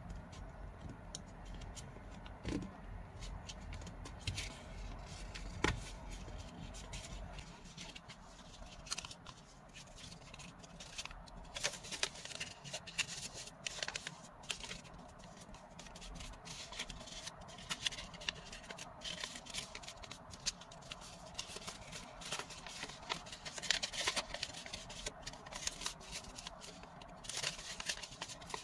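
Origami paper being folded and creased by hand: irregular crinkles, rustles and short scrapes of the paper, scattered unevenly through the whole stretch.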